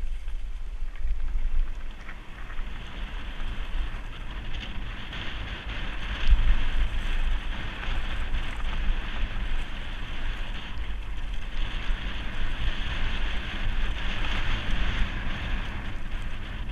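Wind rushing over a helmet-mounted action camera's microphone on a mountain bike descending a dirt singletrack, with the tyres rolling over the trail. A louder knock about six seconds in.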